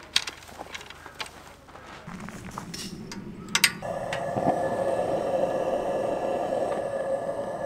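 Coleman Northstar gas lantern being lit: a few light clicks, then a sharp double click of its igniter about three and a half seconds in, and the flame catches at once, the lantern burning with a steady hiss.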